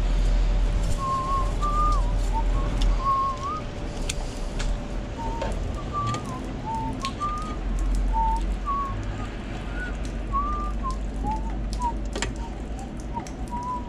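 A person whistling a wandering tune in short, wavering notes, over scattered sharp clicks and taps of hand tools on the vending machine's sheet-metal panel.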